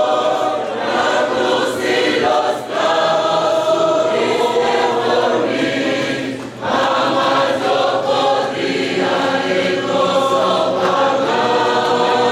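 A choir of many voices singing a Spanish-language hymn together, with a short break in the sound about six and a half seconds in.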